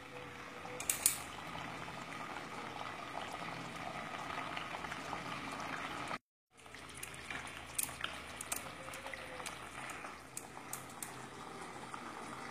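Thick tomato chutney boiling in a pan on a gas stove, bubbling and popping steadily as it simmers down. The sound cuts out for a moment about six seconds in.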